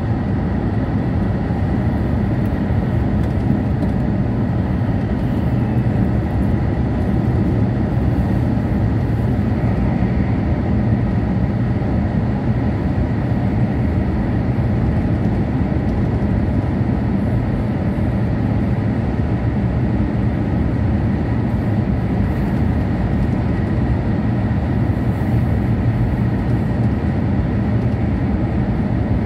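Steady running noise inside an E6-series Komachi shinkansen carriage at high speed: a constant low rumble of wheels, track and rushing air, with a faint steady high whine above it.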